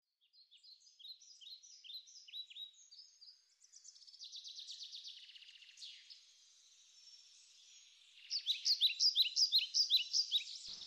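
Songbirds chirping: repeated short, falling chirps, a fast trill about four seconds in, and louder, quicker chirping in the last few seconds.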